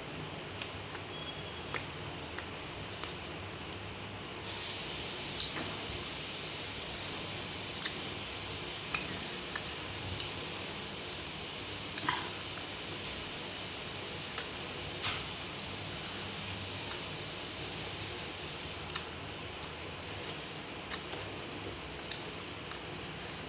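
Close-up eating sounds: scattered sharp wet clicks and smacks of chewing. A steady hiss starts about four seconds in and stops a few seconds before the end.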